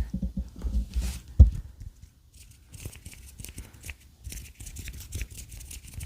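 Close-miked hand sounds, with a few low thumps in the first second and a half, the loudest about a second and a half in, then fine crackly rubbing and rustling of skin from about the middle on.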